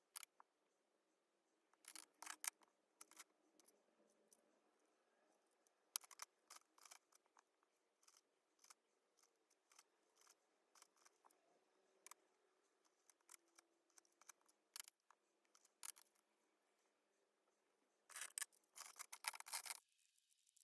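Light, sharp clicks and taps, sparse and irregular, from hands handling wooden colored pencils and their packaging, with a denser run of clicks near the end.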